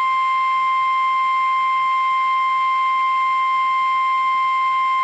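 NOAA Weather Radio warning alarm tone, a single 1050 Hz tone held steady and loud without a break, signalling that a severe thunderstorm warning is about to be read.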